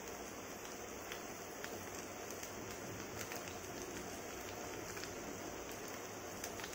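Oil sizzling steadily in a paniyaram pan as kuzhi paniyaram batter fries in its wells, with scattered small crackles.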